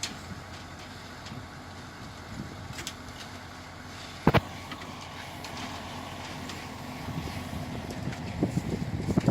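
A motor running steadily, with one sharp knock about four seconds in and irregular knocks building near the end.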